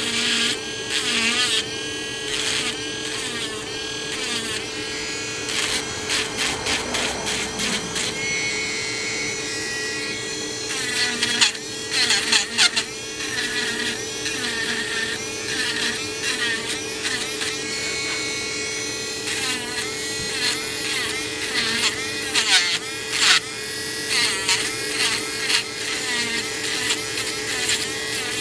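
Small handheld electric rotary tool running steadily with a constant hum, its bit grinding old paint out of the crevices of a doll's arm. The grinding comes in uneven scratchy bursts as the bit touches and lifts off.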